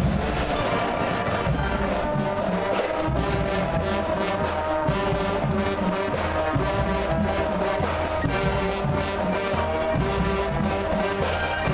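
High school marching band playing live: brass, sousaphones and woodwinds hold long chords over a steady beat of drum hits.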